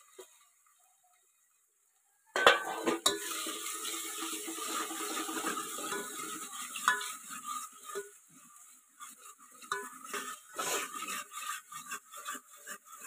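Onion and tomato masala sizzling in a metal pot over a wood fire, with a metal spoon scraping and clinking against the pot as it is stirred. It starts suddenly about two seconds in.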